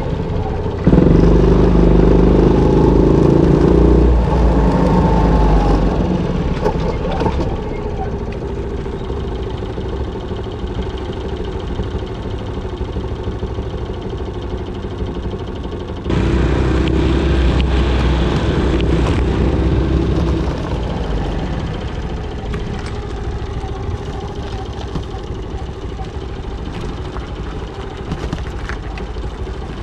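Honda Little Cub's small single-cylinder four-stroke engine, bored up to 88cc, running while riding, pulling louder for a few seconds about a second in and again about sixteen seconds in.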